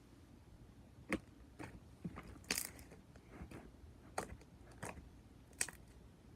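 Clicky slime with putty being kneaded and mixed by hand, giving a string of irregular sharp clicks and wet pops.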